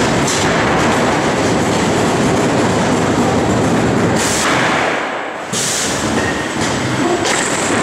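Small combat robots driving and grinding against each other on a plywood arena floor: a loud, steady rattling clatter that dips briefly about five seconds in.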